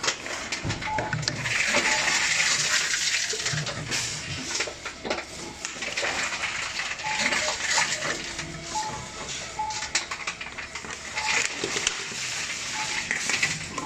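TOMRA reverse vending machine taking in plastic drink bottles: the bottles rattle and knock in the round intake while the machine runs, with a rushing noise that swells several times as each bottle is taken in, plus a few short beeps.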